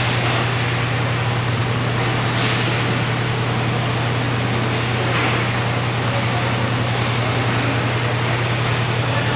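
Indoor roller hockey rink during a game: a steady low hum and even rushing noise, with a few brief swishes every two to three seconds.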